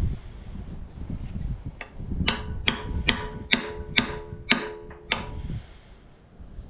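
Hammer blows on steel, seven evenly spaced strikes about two a second, each leaving a short metallic ring: a bushing being driven into an excavator joint with a driver.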